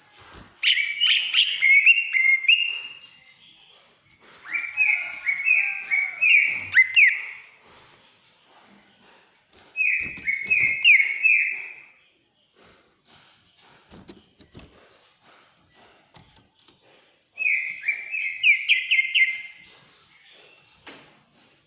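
Cucak ijo (greater green leafbird) singing in four bursts of two to three seconds each, every burst a quick run of loud, high, falling notes. A few faint clicks fall in the pauses between bursts.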